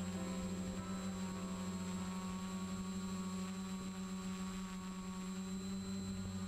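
Quiet background music: a low held chord sustaining and slowly fading away.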